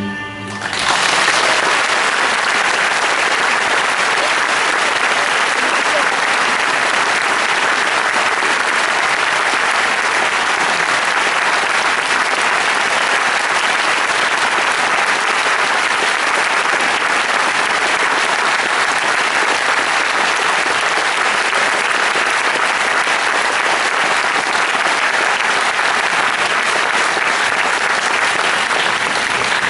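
A folk music piece ends in its first moment, then a large audience applauds steadily for the rest of the time.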